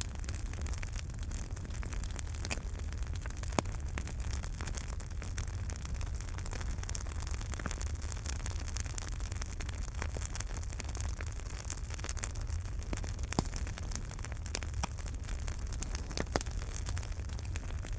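Wood fire burning in a fireplace: irregular sharp crackles and pops over a steady low rumble and hiss.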